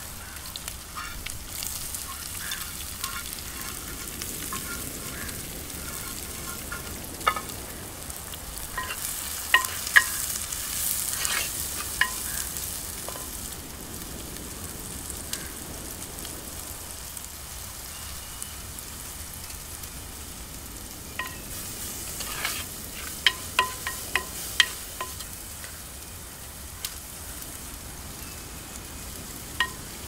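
Chopped shallots sizzling in hot oil in a black earthen pot, stirred with a coconut-shell ladle. Sharp, ringing clinks of the ladle against the pot come in clusters about a third of the way in and again near the end.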